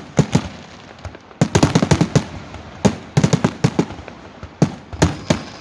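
Firecrackers going off in quick, irregular runs of sharp bangs, with dense flurries about a second and a half in, around three seconds in, and near the end.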